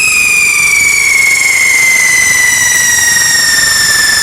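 Whistling firework giving one long, loud whistle that slowly falls in pitch.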